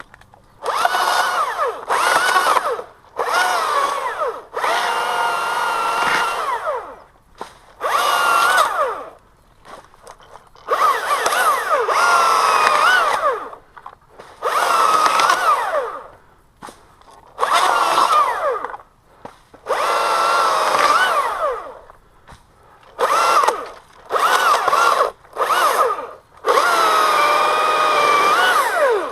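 Chainsaw revved in about a dozen short bursts of one to two and a half seconds each. The pitch falls as the throttle is let off, and the saw drops back between bursts.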